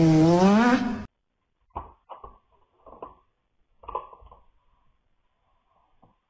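A cat's long, loud yowl that dips and then rises in pitch, cutting off about a second in. A few soft knocks and clatters of a plastic cat flap follow as a cat pushes through it.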